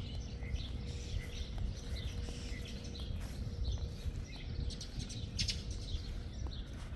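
Small birds chirping again and again over a steady low rumble, with a brief hiss about five and a half seconds in.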